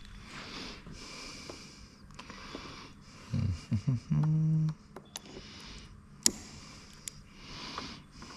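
A person breathing hard through the nose with a short grunt of effort while lifting a battery module out of an electric car's high-voltage battery pack, with a few sharp clicks partway through.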